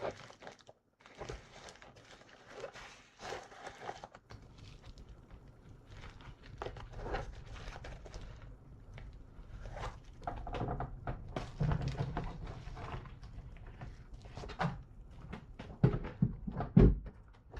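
Handling noise from a shipping package being opened and emptied: rustling and scraping with scattered knocks, and a few louder thumps near the end.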